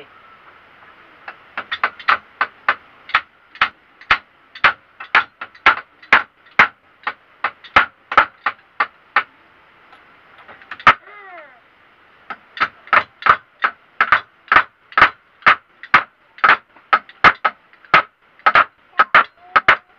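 Hammer blows repeated at about two to three a second while a bed frame is being repaired, pausing for a couple of seconds halfway with one lone blow, then resuming.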